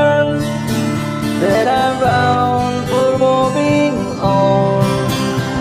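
Country-folk song performed live on acoustic guitar, with a singing voice carrying the melody in long held notes.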